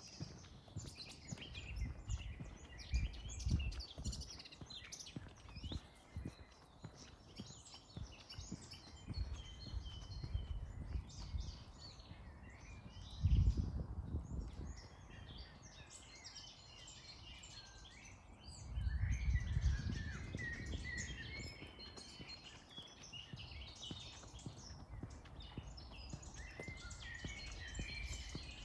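Many small songbirds chirping and singing all through, with low rumbling swells underneath, the loudest about halfway through and another a few seconds later.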